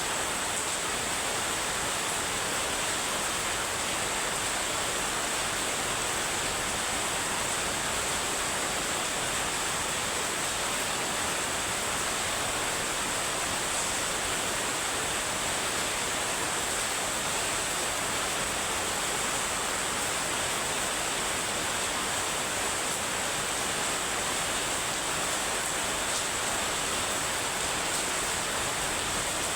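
Heavy rain falling steadily, a dense, even hiss that does not change.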